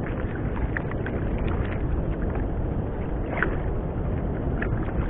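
Steady wind noise on the microphone over sea water moving against a small wooden fishing boat, with a few faint ticks scattered through it.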